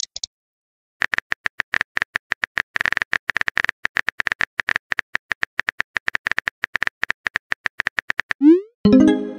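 Phone keyboard typing sounds: a fast, uneven run of short clicks as a text message is typed. Near the end comes a rising whoosh and a chime as the message is sent.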